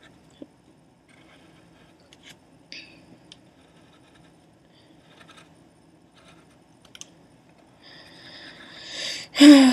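Pencil strokes scratching lightly on paper, a few faint short scratches spread out. A person's voice starts up loudly near the end.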